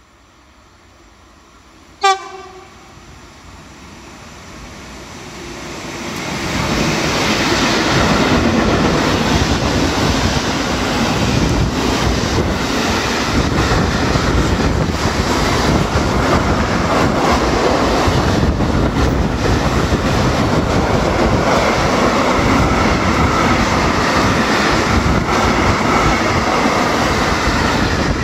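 Freight container train passing close by at speed. A short, sharp blast of the locomotive's horn sounds about two seconds in. Then the rumble of the wagons' wheels on the rails builds over a few seconds and stays loud and steady as the long train runs past.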